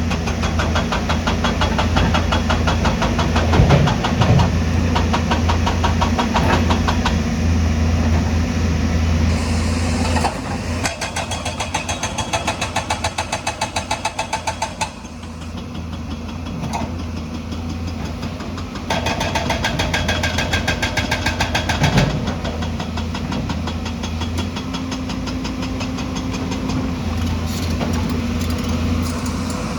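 JCB's hydraulic stone breaker hammering rock with rapid, evenly spaced blows in three spells: one long run, a second starting about ten seconds in, and a shorter one around twenty seconds in. The machine's diesel engine runs steadily underneath throughout.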